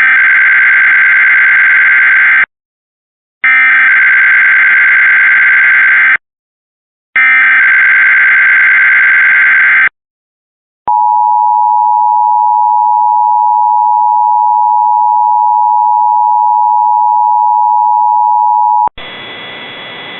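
Emergency Alert System monthly test alert. Three loud bursts of SAME digital header data, each a harsh buzzing screech of about two and a half seconds, are followed after a short gap by the EAS two-tone attention signal held steady for about eight seconds. About a second before the end it gives way to a hiss of static.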